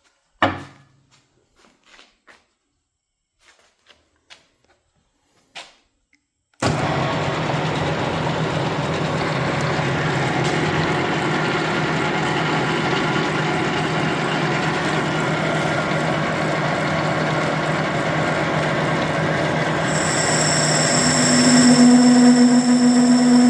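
A few light clicks, then a Sheldon 13 x 24 inch variable-speed metal lathe, driven by a 2 hp three-phase motor, starts suddenly about seven seconds in and runs steadily with a mechanical whir. About twenty seconds in, a higher steady whine joins in and the running gets a little louder.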